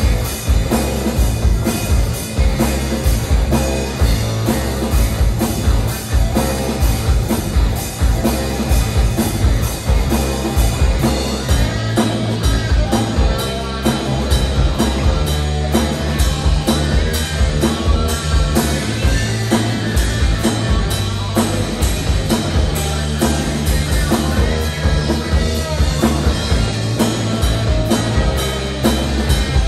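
Live rock band playing loud and continuously: electric guitars over a drum kit keeping a steady beat, with no vocals.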